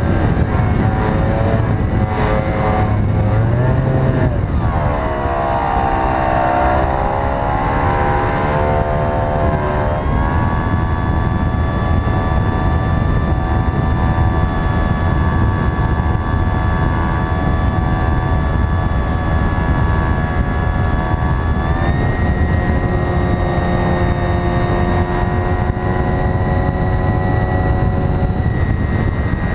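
Model aircraft's motor and propeller, heard from a camera on the plane itself: a pitched drone whose pitch glides up and down over the first several seconds, then holds steady and steps up slightly about three-quarters of the way through, over a constant rush of wind on the microphone.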